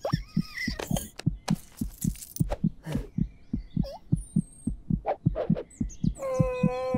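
Heartbeat sound effect, low thumps in pairs about twice a second, with a few short whistling squeaks in the middle. About six seconds in, a held tone with overtones begins over it.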